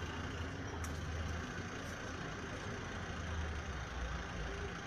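Vehicle engine idling, a steady low rumble heard from inside the cab.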